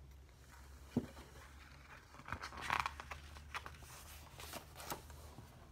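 Faint rustling with a few soft taps: the pages of a picture book being handled and turned.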